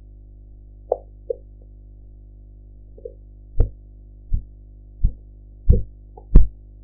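Korotkoff sounds through a stethoscope as the cuff deflates: a few faint clicks, then from about three and a half seconds in a run of five low thumps, a little under a second apart and growing louder. The first clear beats mark the systolic pressure. A steady low hum runs underneath.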